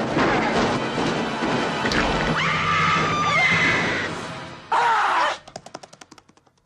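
An overloaded washing machine crashing and banging under film music. A squealing, scream-like cry is heard midway, and near the end a short loud burst gives way to a fast clattering rattle that dies away.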